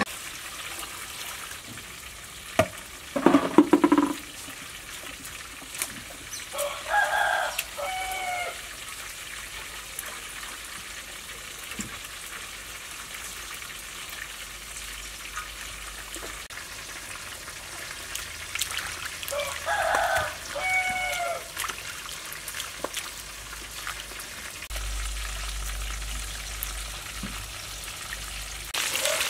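A rooster crowing twice, about twelve seconds apart; each crow lasts about a second and a half, its pitch rising then falling. A steady hiss runs underneath, and there is a short, louder burst of noise about three seconds in.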